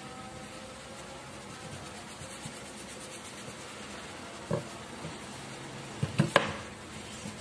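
A few light knocks as a roll of packing tape is bumped and set down on a sheet of cardboard: one about halfway, then a quick run of three louder ones near the end, over a faint steady hiss.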